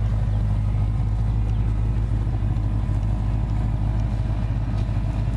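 Fox-body Ford Mustang idling steadily through its exhaust, a low, even running sound that holds level throughout.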